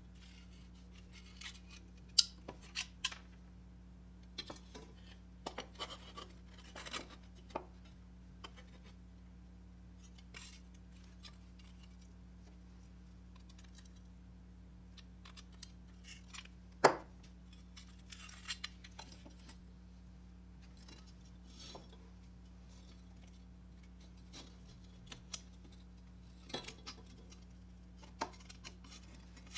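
Needle-nose pliers prying and bending the tabs of a rusted sheet-steel toy airplane, with scattered clicks, scrapes and light clinks of the metal parts against a wooden bench. The loudest sound is a sharp click about 17 seconds in. A steady low hum runs underneath.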